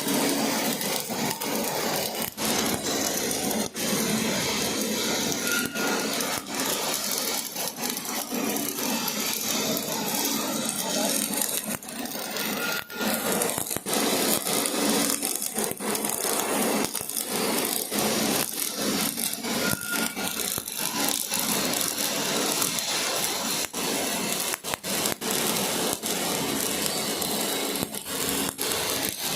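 MIG welding arc from a MEMCO Invermig 400 welder, a steady dense crackle that keeps running with a few brief breaks.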